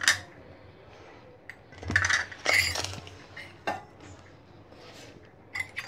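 Metal kitchenware clinking: a spoon and utensils knocking against steel bowls and containers in a few sharp clinks, with a cluster about two seconds in and single clinks near four and five and a half seconds.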